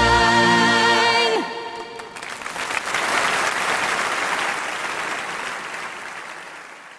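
A schlager song's final held note and chord, sung with vibrato, ends about a second and a half in. Audience applause follows, swelling and then fading away.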